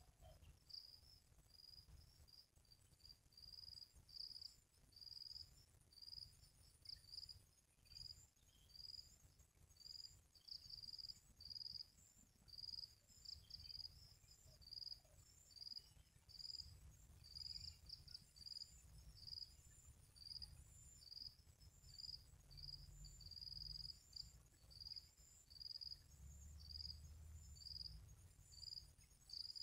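Faint insect chirping: short high chirps repeating about one to two times a second, over a faint low rumble that grows stronger near the end.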